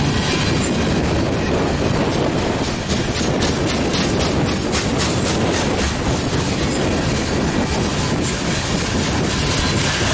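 Steel wheels of a long freight train of coal hopper cars rolling past at speed: a steady rumble and rattle of the cars on the rails. In the middle there is a run of even clickety-clack as trucks cross a rail joint.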